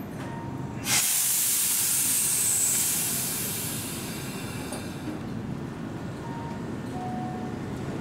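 Compressed air venting from a Keihan electric train at a station: a sudden loud hiss about a second in, holding for a couple of seconds and then fading, over the train's low rumble.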